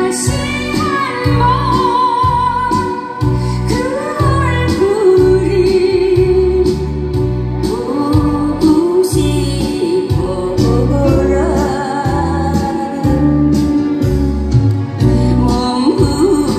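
A woman singing a Korean trot song through a microphone and PA, over instrumental accompaniment with a steady beat.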